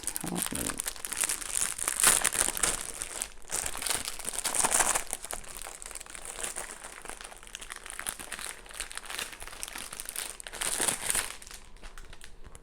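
Plastic bags of Lego pieces crinkling and rustling as they are handled and moved around, with louder swells about two and five seconds in and again near the end.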